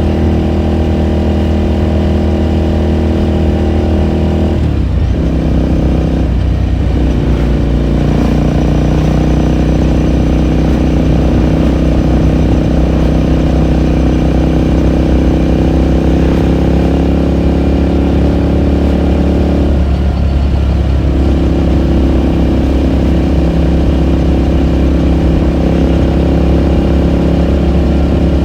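2018 Ducati Scrambler Sixty2's air-cooled 399 cc L-twin engine running under way, heard onboard through its exhaust. The steady engine note breaks and shifts in pitch briefly about five seconds in, again a second or so later, and once more about twenty seconds in.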